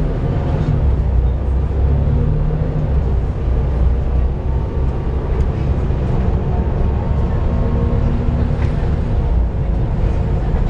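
Volvo B7TL double-decker bus running, a steady low drone with deeper humming tones that come and go.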